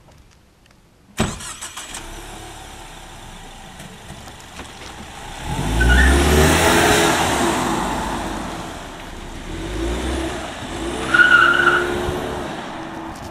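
Ford Mustang: a car door slams shut about a second in, then the engine runs and revs loudly as the car pulls away, swelling again as it drives past. A short high squeal comes near the end.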